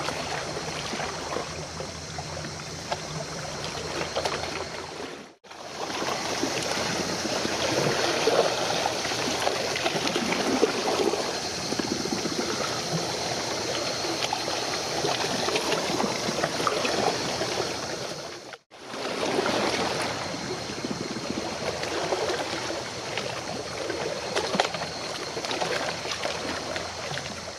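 Steady splashing and trickling of moving water, with a faint low hum underneath in the first few seconds. The sound drops out for an instant twice, about five seconds in and about two-thirds of the way through.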